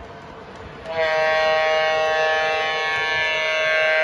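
Horn sounding from the onboard sound system of an MTH FM Trainmaster O-gauge model diesel locomotive. It is one long, steady, multi-note chord that starts about a second in, over the faint running noise of the train on the track.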